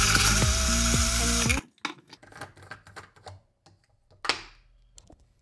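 Personal bullet blender running loudly as it mixes a protein shake, over background music; both stop abruptly about a second and a half in. Then scattered clicks and knocks of the blender cup being taken off and handled on the counter, with one louder knock near the middle.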